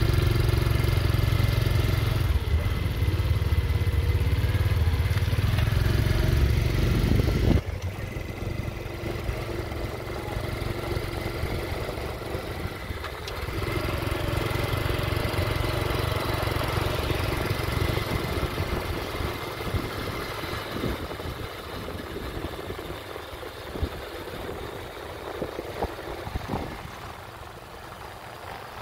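A car engine running with road noise. A heavy low rumble for the first seven seconds or so cuts off abruptly, leaving a quieter, steady running sound.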